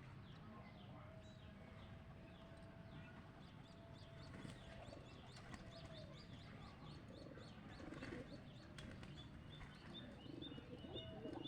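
Faint bird sounds: many quick, high chirps repeating all through, with domestic pigeons cooing low in the second half.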